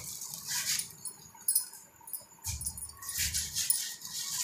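Bangles on a wrist jingling in short, repeated clinks as a hand rubs oil over a paratha on a hot tawa, with a few soft handling thumps.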